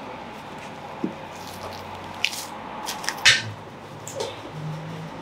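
Raw lamb carcass being butchered by hand: wet squelching and short knife-cutting sounds in the meat, with a heavier thump a little after three seconds in as the carcass is handled.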